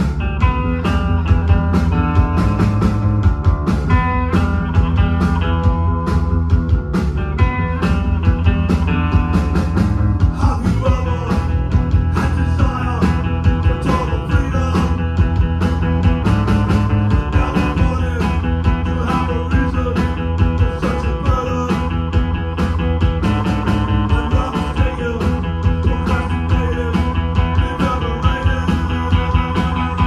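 Live rock band playing loudly: electric guitar, bass guitar and a drum kit with steady beats, and a man singing into the microphone for much of it.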